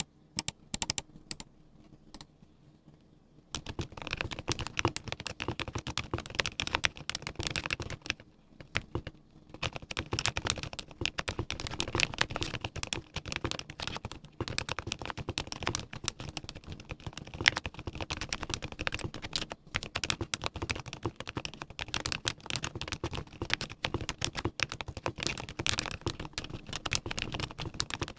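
Typing on a Mode Eighty mechanical keyboard with lubed silent Gateron Ink V2 switches, a full brass plate and PBT keycaps. A few scattered keystrokes, then steady, fast typing from about three and a half seconds in, with a short pause near nine seconds.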